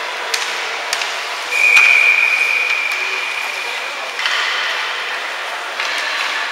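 Ice hockey game sounds: sharp clacks of sticks and puck, and a single high steady tone that starts about a second and a half in and fades away over about two and a half seconds.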